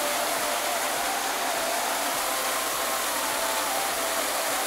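A small mountain waterfall, its water rushing steadily in an even, unbroken hiss.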